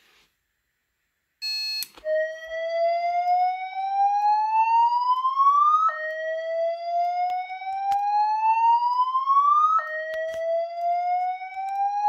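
Simplex fire alarm speaker strobe sounding an EST-style voice-evacuation slow whoop: a short beep, then a loud tone that sweeps up in pitch over about four seconds, drops back and sweeps up again, three times.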